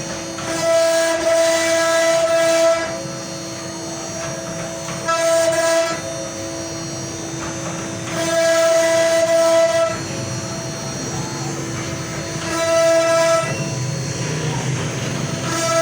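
CNC wood router running with a steady spindle whine; a louder, higher tone cuts in four times, each for one to two seconds, as the machine works the wood.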